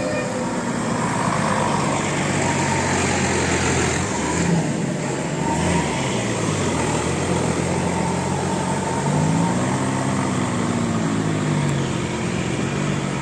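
Road traffic with heavy vehicles passing: steady engine and tyre noise, an engine's pitch rising and falling about four seconds in and again around ten seconds.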